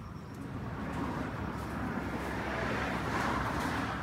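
Road traffic noise with a vehicle going past, loudest about three seconds in.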